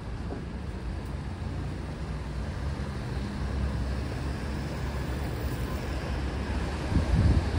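Steady low rumble of city road traffic, with a brief louder surge near the end.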